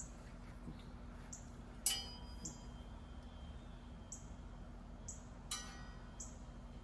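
Metal support legs of an animatronic prop's base clinking as they are slid into place: two sharp metallic knocks, the louder about two seconds in and another about three and a half seconds later, each ringing briefly.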